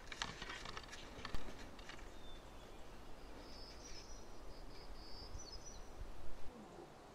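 Outdoor ambience: rustling and crackling through the first two seconds, then a high, thin call held for about two seconds in the middle. Two soft low thumps, one about a second and a half in and one near the end, are the loudest moments.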